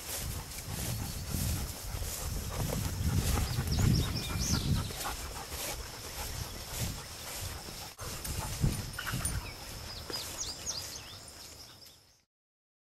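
Footsteps swishing through long grass with a low rumble of movement, under a few short bird chirps about four seconds in and again near ten seconds, and a thin steady high buzz of insects. It all fades out just before the end.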